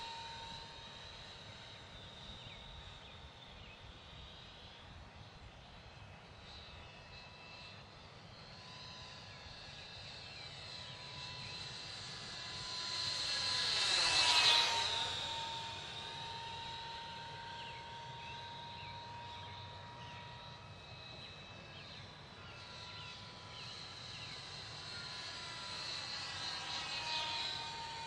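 AEO 35 mm electric ducted fan of a J-29 Tunnan RC jet model whining steadily in flight. It grows louder on a close pass about halfway through, its pitch dropping slightly as it goes by, then swells again on another approach near the end.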